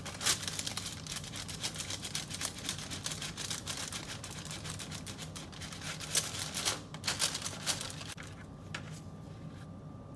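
Spatula scraping and sliding under a baked cauliflower pizza crust to free it from parchment paper on a baking sheet, with the paper crinkling. Rapid, irregular scratchy clicks that die down after about eight seconds.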